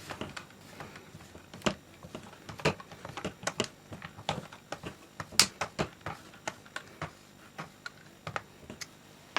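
The clamping screw of an ICS UKSR airsoft stock being tightened onto the buffer tube with a hand tool: a run of light, irregular clicks and ticks, a few a second.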